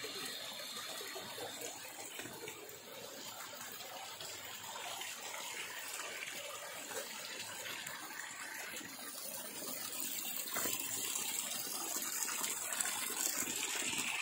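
Running mountain water, a steady splashing flow that gets a little louder from about ten seconds in.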